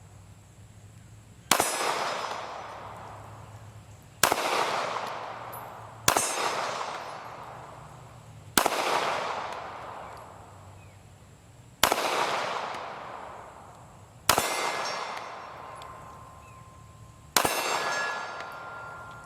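Seven single shots from a Glock 43 9mm pistol, slowly paced two to three seconds apart, each followed by a long fading echo. After the last two shots a steel target plate rings briefly with a steady tone.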